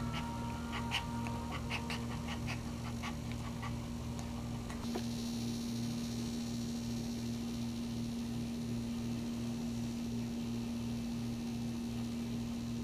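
Small white dog in labour whimpering in short, high cries, several a second, during the first few seconds. After that a steady hum runs on with a soft low pulse about three times a second.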